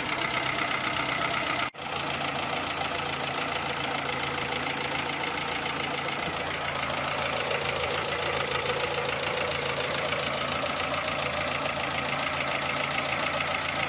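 Citroën Saxo 1.1 petrol engine running steadily with a fast, diesel-like ticking from the top end, which the mechanic takes for valve clearances needing adjustment, or else worn camshaft lobes or rocker arms. The sound breaks off briefly about two seconds in.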